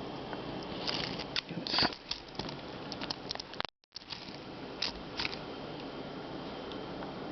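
Cyber Clean sticky cleaning putty pressed onto and peeled off a computer keyboard, rattling the keys: a run of light clicks and sticky crackles, thickest between one and three and a half seconds in, then two more clicks, over a steady hiss. A split-second dropout to silence comes just before the middle.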